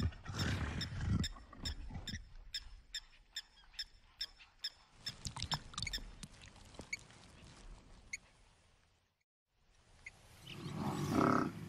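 Leopard feeding on a freshly caught guinea fowl: a run of small crisp clicks and crunches as feathers are plucked and the bird is chewed, with a few low thuds in the first second. After a brief silence near the end, a louder low rumbling sound rises.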